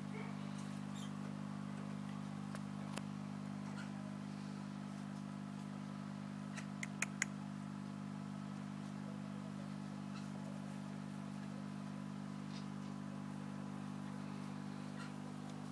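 Steady low machine-like hum, with a quick run of four sharp clicks about seven seconds in.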